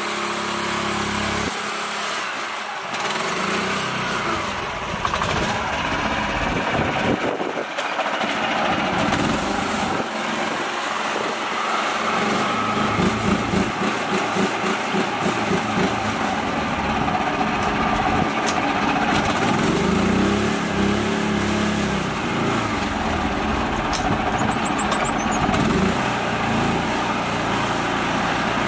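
Mini tractor's small engine running under load as it tows a trailer of children through loose dirt. From about twelve seconds in, its note surges and dips for a few seconds.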